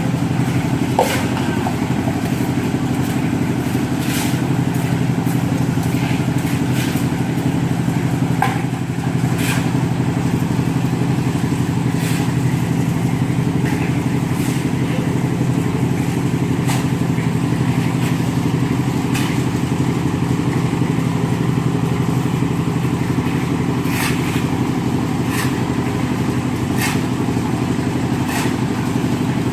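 An engine running steadily at an even speed, with irregular sharp clicks and clinks over it.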